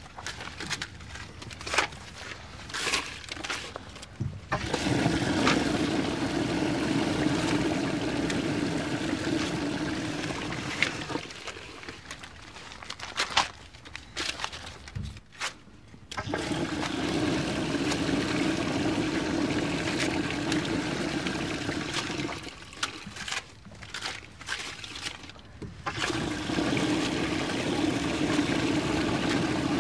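A toilet flushing three times: rushing water for about six seconds each time, starting about five seconds in, again around sixteen seconds, and again near the end. Between flushes, short rustling and crinkling of paper banknotes being crumpled and pushed into the bowl.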